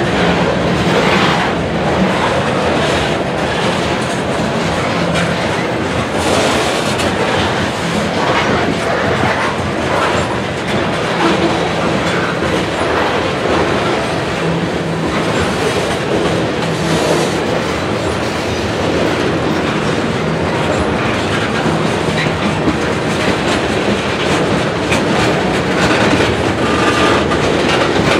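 Freight train cars rolling past at close range: steel wheels clicking over the rail joints over a steady, loud rumble of the train.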